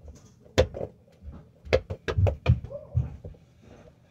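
A spiky rubber bouncy ball being batted by hand and bouncing off the room's surfaces: a string of sharp knocks and thuds, about six of them, bunched together in the middle.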